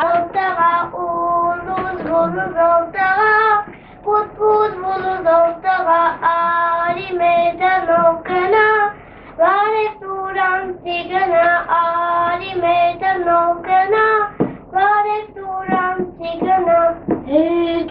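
A young girl singing a song alone, with no instruments, in phrases of held notes with short breaks between them.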